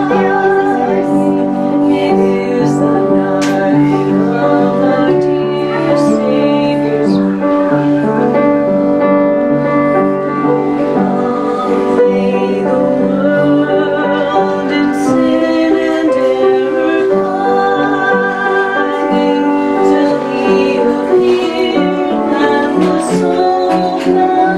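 Background music: a song with singing over piano.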